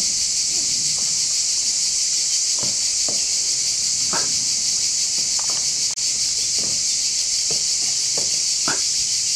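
Loud, steady chorus of cicadas: a dense, unbroken high-pitched buzz.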